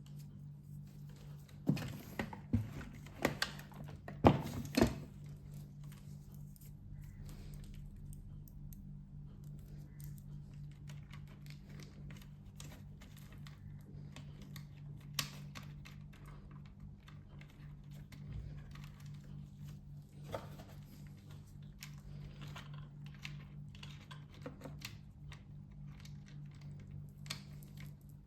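Plastic parts of a robot vacuum being handled and fitted together during reassembly: a cluster of sharp clicks and knocks in the first five seconds, then occasional lighter ticks, over a steady low hum.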